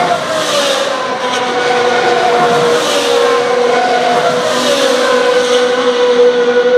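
2016 Formula 1 cars' turbo V6 engines running at high revs, giving a steady high-pitched whine. Cars pass close by just after the start and again about four to five seconds in, and each time the engine note drops in pitch as the car goes by.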